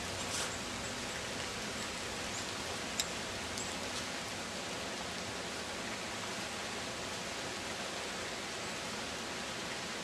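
Steady, even hiss with a few faint ticks about a second apart near the start and around the third second.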